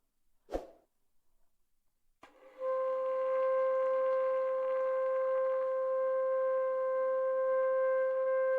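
Saxophone played by a beginner: a short puff of breath about half a second in, then from about two and a half seconds a single steady note held without wavering.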